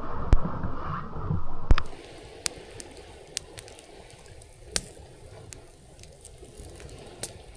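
Wood campfire crackling: scattered sharp pops over a soft steady rush. In the first two seconds, before it, there is a louder rushing noise with two sharp knocks.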